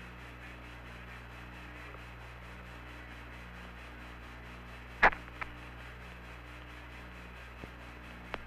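Open air-to-ground radio channel between transmissions: a faint steady hiss and hum with a low tone pulsing on and off. A sharp click about five seconds in, and a few smaller clicks later.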